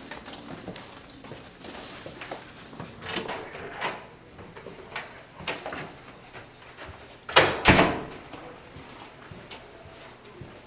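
Scattered light knocks and clicks, then two loud thumps in quick succession about seven and a half seconds in.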